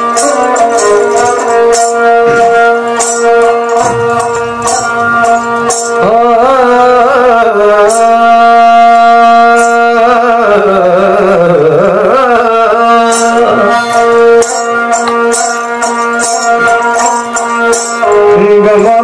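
A bowed folk string instrument playing a sliding, ornamented melody over a steady drone, with short percussive taps recurring throughout.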